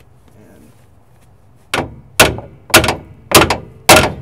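Hammer striking steel on a car's suspension underside: five hard blows about half a second apart, starting a little under two seconds in, each with a short metallic clang. The part is being beaten out to fit.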